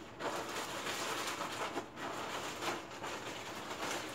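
Plastic trash compactor bag lining a backpack being opened and rummaged through, rustling in a run of short, irregular crackles.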